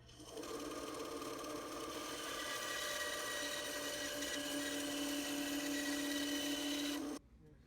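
Small electric power tool motor running steadily with a whining hum, switched off abruptly about seven seconds in.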